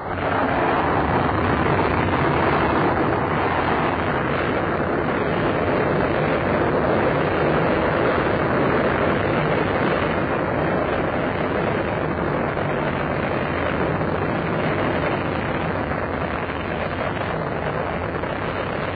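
Molniya carrier rocket's engines firing at liftoff: a loud, steady roar of noise that comes in abruptly and holds as the rocket climbs.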